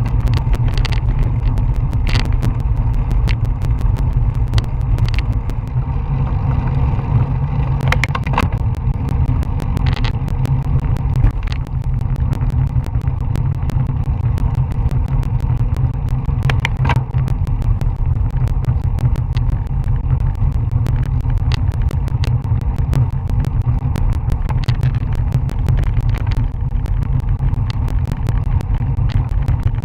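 Wind buffeting the microphone of a Garmin VIRB action camera on a moving road bicycle, heard as a steady low rumble mixed with road noise. Scattered sharp clicks and knocks run through it.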